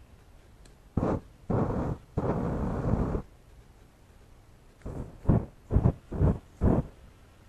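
Axe body spray sprayed from its aerosol can into a flame, igniting in bursts of fire. There are three longer bursts, the last about a second long, then five short puffs in quick succession.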